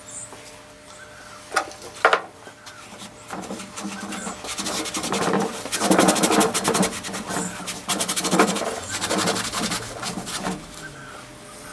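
A rag rubbing over the bare cast-iron bed of a Hercus 9-inch lathe, wiping it clean in preparation for paint. There are a couple of knocks about two seconds in, then a run of quick scrubbing strokes through the middle.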